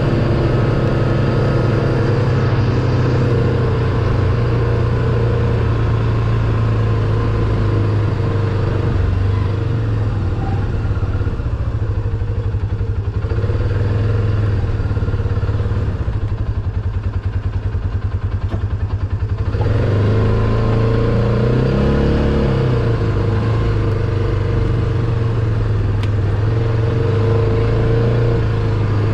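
2018 Polaris RZR 570's single-cylinder engine running steadily as the UTV drives along, easing off and going quieter for several seconds around the middle, then picking back up about twenty seconds in.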